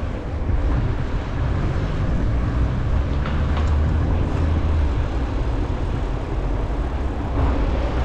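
Wind buffeting the action camera's microphone while riding a mountain bike down a street: a steady, heavy low rumble with an even hiss above it.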